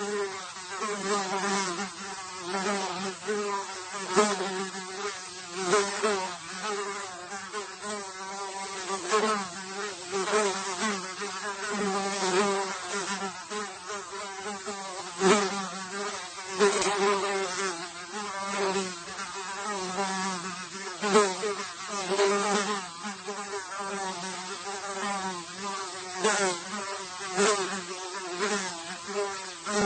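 A single fly buzzing in flight, its drone wavering in pitch and swelling and fading as it moves about, with frequent short louder bursts.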